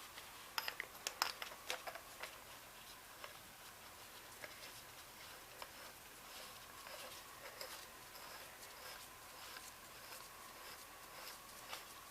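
Small metal parts of a Ramset 122MD powder-actuated tool being handled during teardown: a quick cluster of sharp clicks and taps in the first two seconds, then scattered light clicks. A faint steady tone runs through the second half.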